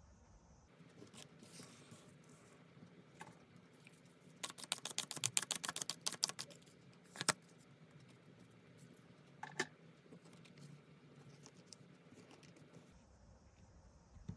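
Tarot cards being shuffled and handled: a quick rattling run of card flicks lasting about two seconds, followed by a couple of single card taps.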